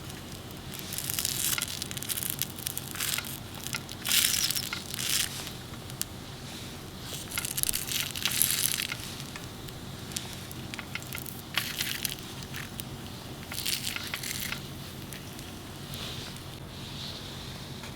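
Irregular bursts of crinkling and crunching, from ingredients and their packaging being handled while the dish is prepared, over a faint steady low hum.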